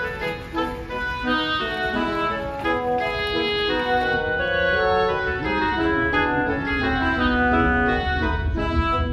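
Background music: a keyboard melody of held notes over chords, with a low rumble rising under it near the end.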